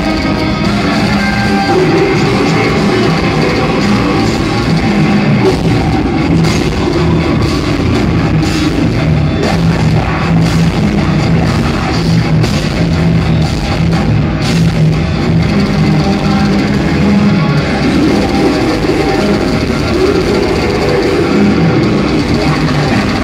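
Heavy metal band playing live at full volume: distorted electric guitars, bass and a drum kit, heard from among the crowd.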